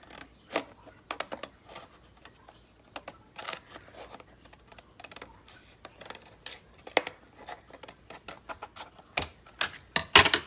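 Irregular light clicks and crackles of paper and stiff plastic packaging being handled, with a louder cluster of clicks near the end.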